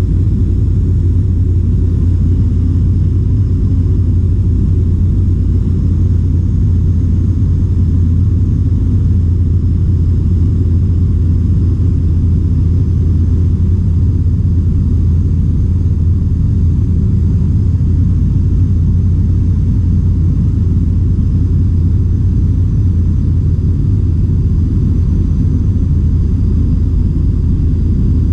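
Dynamic WT9 light aircraft's engine and propeller droning steadily, heard inside the cockpit in flight, with a deep, even low hum and no change in power.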